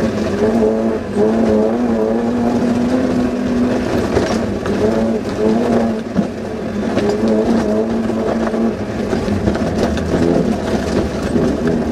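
Suzuki Vitara off-road rally car's engine heard from inside the cabin, its speed rising and falling as it is driven hard over the stage, with scattered knocks from the car over rough ground.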